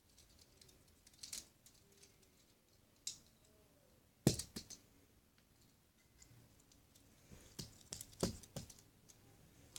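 Small plastic Bakugan toy figures being handled and snapped open and closed: scattered sharp plastic clicks and snaps, the loudest about four seconds in, with a quick cluster of clicks near the end.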